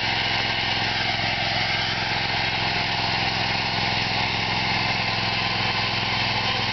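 Engine of a timber slab-milling saw running steadily at an even pitch, with a constant hiss over the hum.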